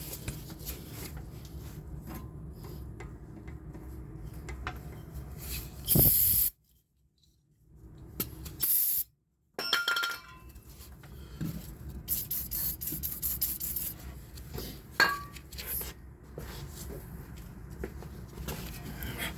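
Hand scraping and rubbing, sandpaper worked around the inside of the hub's axle bore, as a string of short scratchy strokes. About six seconds in and again near nine seconds come short, loud hisses. The sound cuts out twice briefly.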